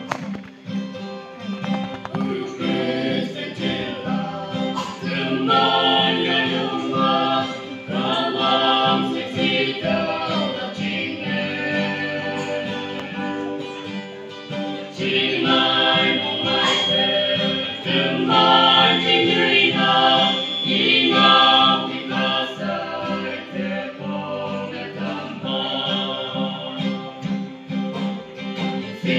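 A small mixed group of male and female voices singing a gospel hymn in harmony, accompanied by a strummed guitar. The guitar plays alone briefly before the voices come in about two seconds in.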